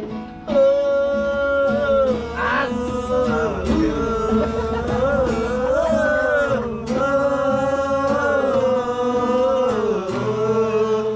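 A man singing a folk song in long, wavering held notes, with music accompanying him.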